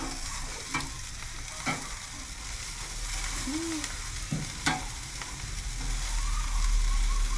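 Marinated chicken sizzling over hot charcoal on a barrel grill, with a steady hiss and a few sharp clicks of metal tongs against the grate as the pieces are turned. A low rumble builds near the end.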